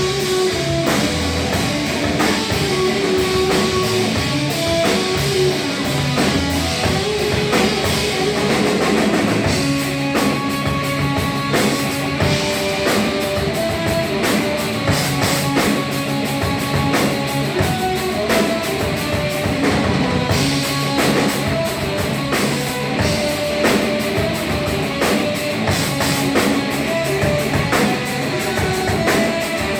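Live hardcore punk band playing loud and fast: distorted electric guitar and bass riffs over a pounding drum kit.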